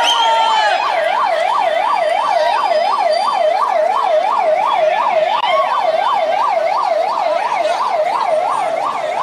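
Loud ambulance siren on a 108 emergency ambulance, in a fast yelp: a wail sweeping up and down about three times a second.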